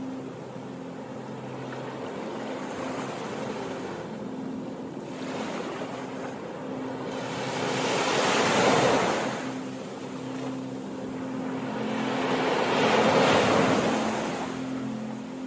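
Ocean waves washing onto a shore: a steady surf hiss with two larger waves that swell and break, one a little past the middle and one near the end, each fading away again.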